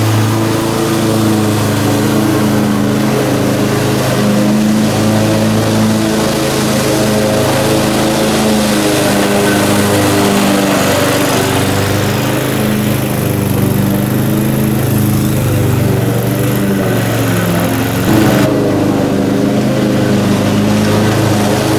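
Dixie Chopper Zee 2 zero-turn riding mower running steadily, its engine and blades cutting through thick, month-overgrown grass. The engine note wavers slightly up and down as it works under the load.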